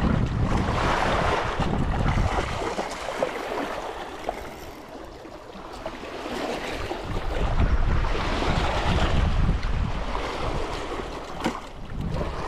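Wind gusting across the microphone: a rushing noise with a heavy low rumble that eases off for a few seconds and then picks up again, with a few light clicks.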